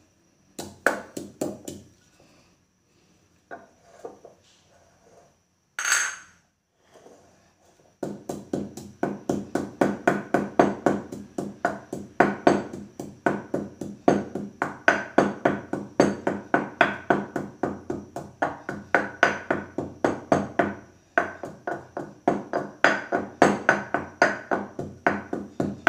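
Wooden pestle pounding sesame seeds in a clay mortar. A few scattered knocks come first, then from about eight seconds in a steady run of dull strikes, two to three a second, with a short break near the end.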